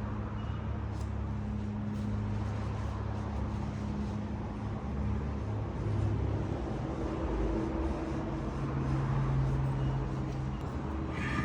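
Low, steady mechanical hum and rumble, its pitch shifting a few times.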